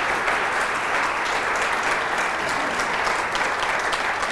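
Audience applauding, steady and dense throughout.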